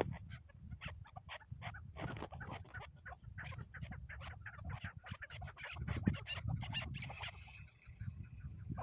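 Chukar partridge calling: a long series of short clucking notes that speed up over several seconds, then break off near the end, over a steady low rumble.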